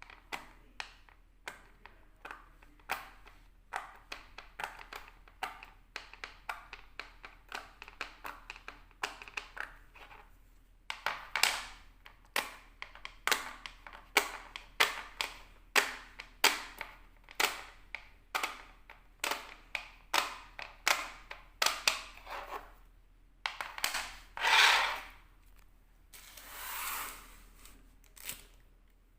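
A plastic fidget toy clicking and snapping as it is played with: dozens of sharp clicks in an uneven rhythm, a few a second. They get louder about a third of the way in, and two longer, louder noisy sounds come near the end.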